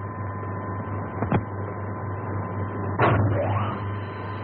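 Steady electrical hum with a constant high tone from an early sound-film effect for a television viewing screen. A sharp click comes about a second in, and about three seconds in a sudden burst swoops down and then rises, as the screen's picture changes.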